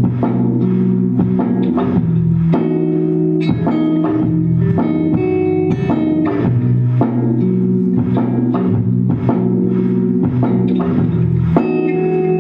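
A live band playing an instrumental passage, with guitars and bass over a steady drum beat.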